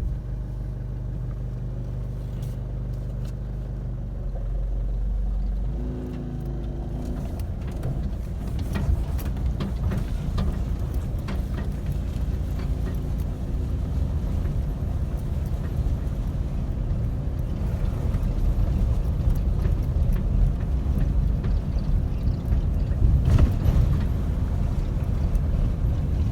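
Car engine idling steadily, then pulling away about six seconds in, followed by a growing low rumble of engine and road noise as the car drives on.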